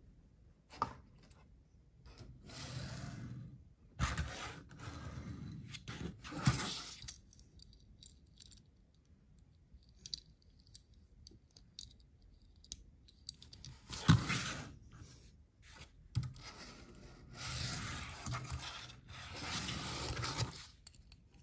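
Tiny toy cars handled and set down on a hard tabletop: sharp taps and clinks of the little cars against the surface, with short scraping, rustling handling sounds between and a quiet stretch in the middle.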